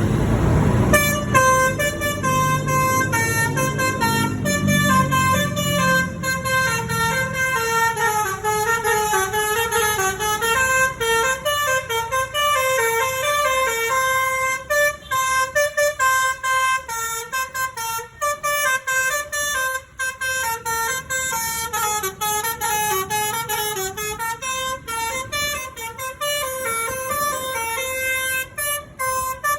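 Telolet basuri V3 multi-tone bus horn playing a fast melody of short notes that step up and down in pitch. A low engine rumble under the opening seconds fades out.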